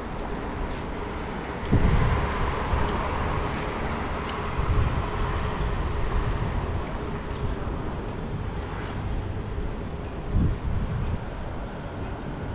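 City street traffic noise, a steady hiss and rumble of passing cars. Louder low rumbles come about two seconds in and again near the end.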